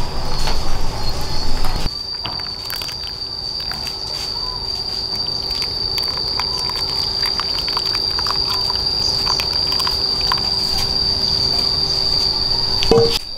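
Insects chirring in a steady high-pitched whine, with scattered light clicks and taps. A louder rough noise fills about the first two seconds and stops abruptly.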